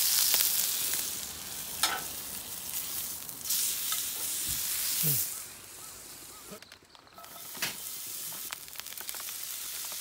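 Meat sizzling as it fries in a hot steel pan, with a few knocks and clicks of a utensil. The sizzle dies down about halfway through, leaving a quieter stretch with scattered clicks.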